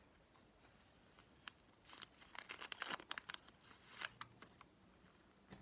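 Faint handling sounds: scattered small clicks and crinkling rustles, busiest in the middle, with a sharper click near the end.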